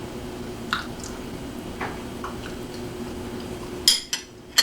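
Light eating sounds: a few soft clicks and smacks, with a louder sharp smack near the end, over a faint steady hum that drops away shortly before the end.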